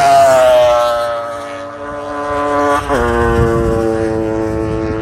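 Vintage racing motorcycles passing on a track: one engine note falls in pitch as it goes by and fades, then about three seconds in another bike passes close, its note dropping sharply and then holding steady as it draws away.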